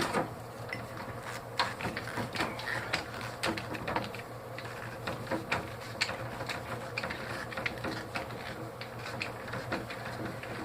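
Irregular light clicks and taps of metal parts and hand tools being handled while taking apart the aluminium-topped pump of a small DeWalt air compressor, over a faint steady hum.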